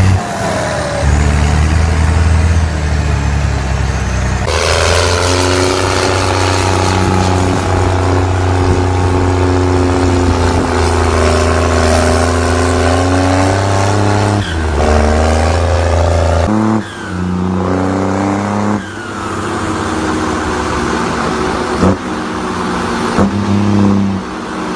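Turbocharged diesel tractor engines running loudly and revving, the engine pitch rising and falling. The sound changes abruptly several times, as one clip gives way to the next.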